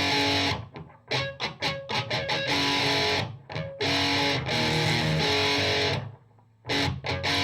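Ibanez S470 electric guitar playing held chords broken up by quick, choppy strums, with a short pause about six seconds in.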